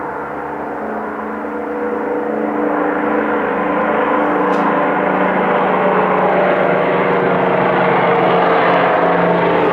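Canadair CL-215 water bomber's twin radial piston engines and propellers running at takeoff power: a steady drone with a humming tone that slowly grows louder.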